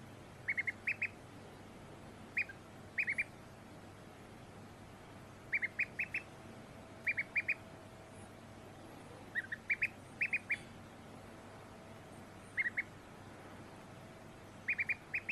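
Duckling peeping: short, high peeps in quick clusters of two to five, repeated every second or two.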